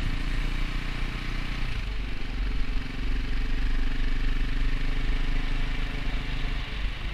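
KTM 450 EXC's single-cylinder four-stroke engine running as the motorcycle is ridden, with a steady low rumble; the engine note changes about two seconds in.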